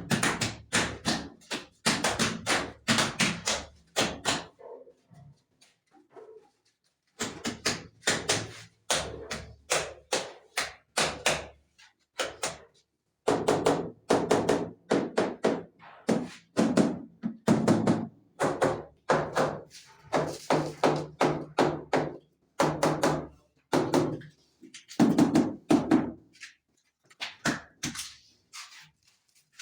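Wall tiles being struck into their fresh cement bed, a quick run of dull thunks and taps coming in bursts with short pauses between.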